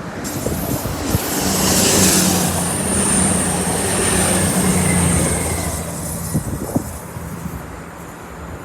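East Midlands Railway Class 222 Meridian diesel multiple unit passing, its underfloor diesel engines running with a steady hum that swells and fades. A high thin wheel squeal rises over it for a few seconds in the middle, and a few sharp clicks come near the end.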